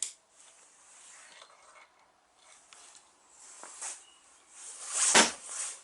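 Faint rustling and small clicks, then one loud scraping knock about five seconds in.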